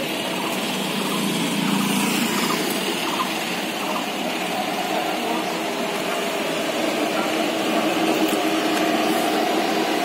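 Steady engine and street-traffic noise: a car engine running at idle amid passing traffic, even and unbroken.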